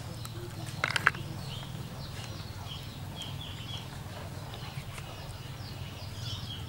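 Small birds, likely chicks, chirping in quick runs of short falling notes, loudest near the end, over a steady low hum. About a second in, a few sharp clicks, snail shells knocking together as they are handled over the basket.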